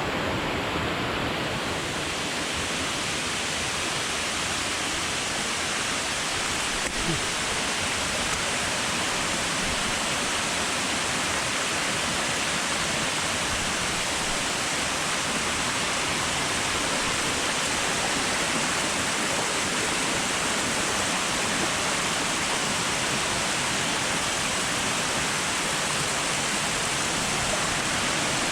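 Waterfall rushing: a steady, even wash of falling water that holds without a break, with one short click about seven seconds in.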